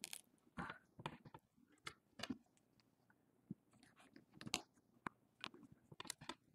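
Faint, irregular clicks and crackles of a razor blade and plastic pry pick working under the edge of a phone's glued plastic back cover.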